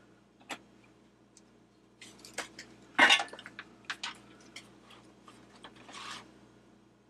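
Small hand tools and a soldering pen being picked up and handled on a workbench: a string of sharp metallic clicks and clatters, loudest about three seconds in.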